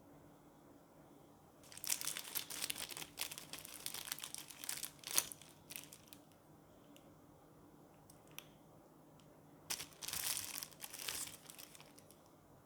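Packaging being crinkled and handled in two stretches of rustling, the first lasting about four seconds, the second about two.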